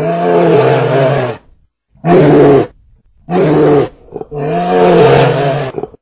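Deep animal roars, four in a row with short silent gaps between them. The first and last each last about a second and a half, and the middle two are shorter.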